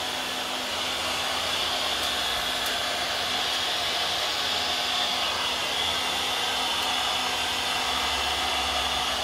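Heat gun blowing steadily as it shrinks heat-shrink tubing over wire splices, a constant hiss with a faint steady hum underneath.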